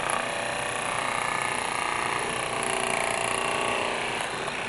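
TIMTAM Power Massager Pro percussion massage gun running steadily with its heated ball tip pressed against the upper arm: a continuous motor hum.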